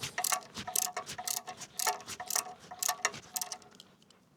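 A hand ratchet clicking in quick back-and-forth strokes as a hose clamp on a tractor's coolant hose is tightened; the clicking stops near the end.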